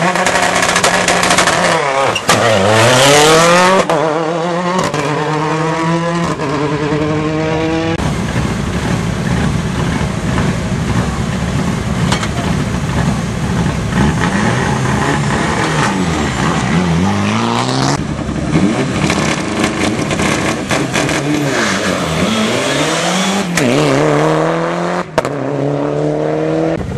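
Rally car engines launching from a stage start. Each revs, dips, then climbs in pitch through three or four quick upshifts as the car accelerates away: once about two seconds in and again near the end. Between launches a rally engine runs steadily and roughly at the line.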